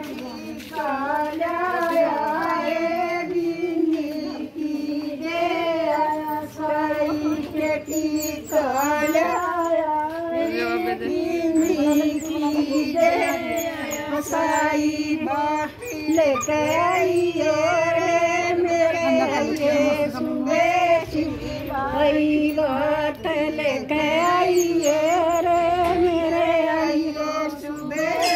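High-pitched female singing that runs on without a break, over a steady held low tone.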